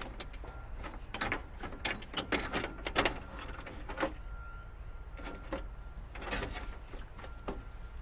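Irregular clicks, taps and knocks of hand tools and metal parts while a car door window is being removed. They come in quick clusters in the first half and more sparsely after.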